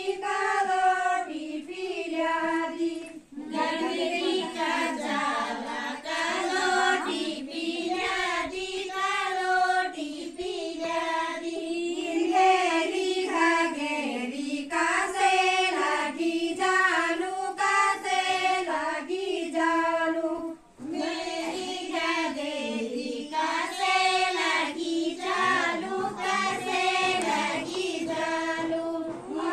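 A group of women singing an Uttarakhandi thadya folk song in unison, without instruments. There are two short breaks for breath, about three seconds in and about twenty-one seconds in.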